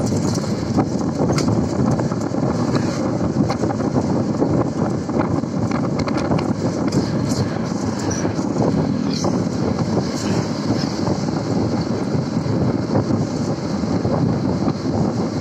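Steady road noise from a moving vehicle, heard through an open window: engine and tyre rumble, with wind buffeting and crackling on the microphone.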